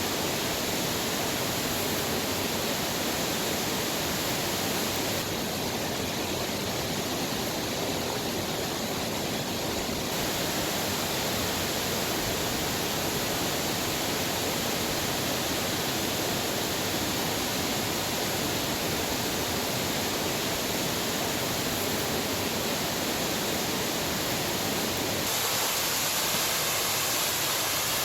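Waterfall rushing, a steady full-range roar of falling water that shifts slightly in tone three times.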